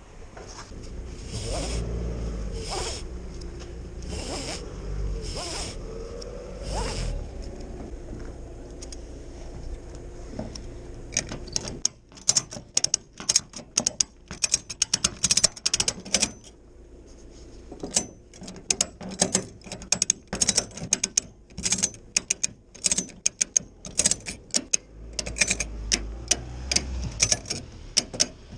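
Orange nylon ratchet strap being tightened. The webbing is first pulled and rubbed through with a few swishing drags, then from about eleven seconds in the steel ratchet buckle's pawl clicks in quick runs as the handle is pumped, with a short pause midway.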